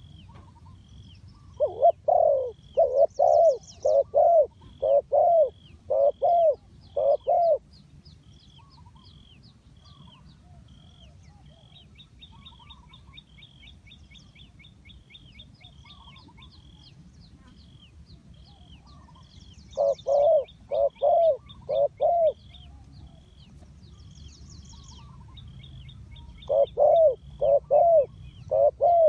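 Spotted dove cooing in runs of short, loud coos: a long run of about ten a couple of seconds in, four more around twenty seconds in, and another four near the end. A small bird's thin high chirp repeats steadily throughout, with occasional brief high trills.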